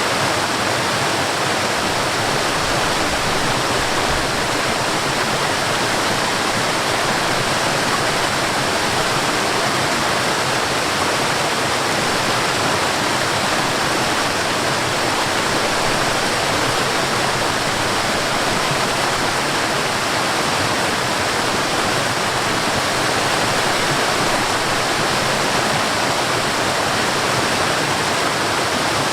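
Steady rushing of water flowing over a small waterfall into a stream, an even, unbroken wash of sound.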